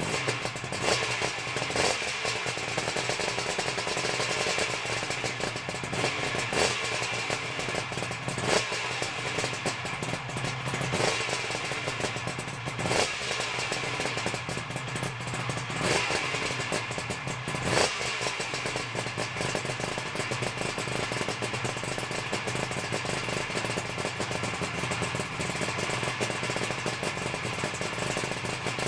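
Suzuki GT380's air-cooled two-stroke triple running through a Jollymoto exhaust, idling with a series of short throttle blips over the first eighteen seconds or so, then settling to a steady idle.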